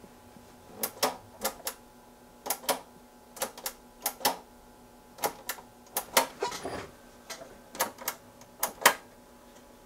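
Push-button power switch of a Keithley 192 bench multimeter clicking as it is pressed and released over and over, in quick pairs of sharp clicks about ten times. The meter is being power-cycled because it is not powering up right.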